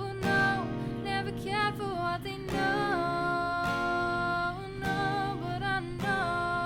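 Background music: a song with a singing voice over plucked acoustic guitar.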